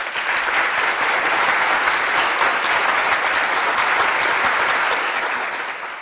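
A crowd applauding steadily, many hands clapping at once, easing off slightly near the end.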